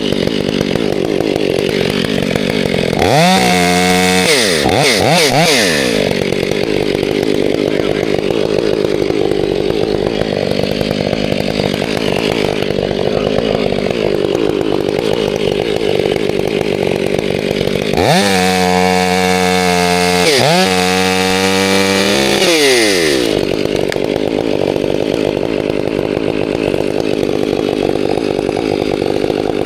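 Two-stroke chainsaw idling steadily. It is revved up briefly a few seconds in, then held at high revs for about five seconds later on, with a short dip in the middle, before settling back to idle.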